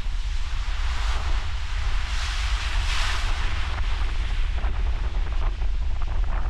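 Ocean surf: a wave breaks and washes in, its hiss swelling to a peak about two to three seconds in and then easing, over a steady low rumble of wind buffeting the microphone.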